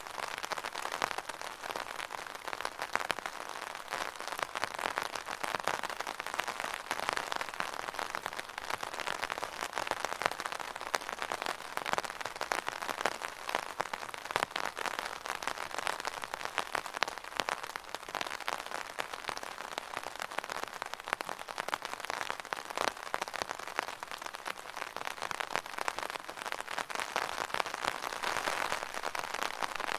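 Rain falling steadily on an umbrella: a dense, even crackle of many small drop hits on the canopy.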